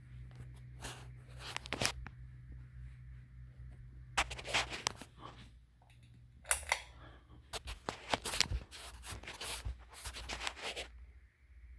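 Bursts of scratching and rubbing noise, coming and going irregularly, over a steady low hum.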